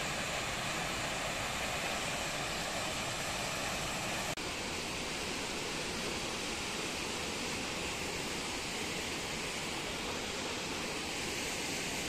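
Steady rush of water from a waterfall, with a brief drop-out about four seconds in.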